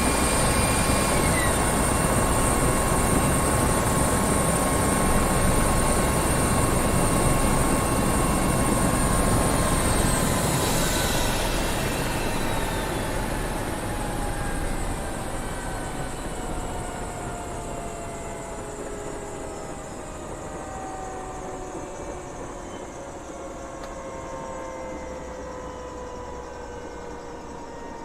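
Helicopter taking off: loud rotor and turbine noise with a steady high whine. After about ten seconds the whine drops in pitch and the sound fades gradually as the helicopter moves away.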